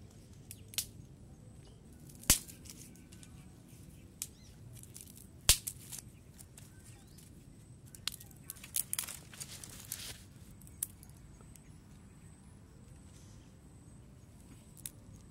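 Dry sticks snapped by hand: two loud, sharp cracks a few seconds apart, then a run of smaller snaps and crackles, over a faint outdoor background.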